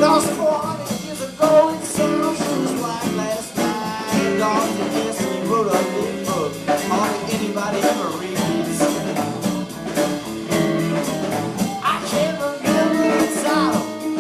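Live band playing a bluesy rock song with guitar and a steady drum beat, in a passage between sung lines.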